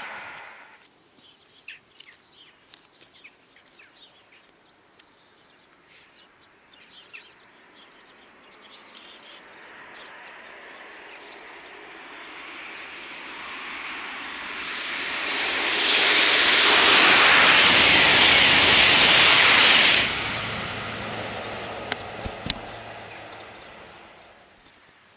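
High-speed train passing at speed on the line. Its rushing noise builds as it approaches, is loud for about four seconds as it goes by, then drops off sharply and fades away. Faint bird chirps come before it.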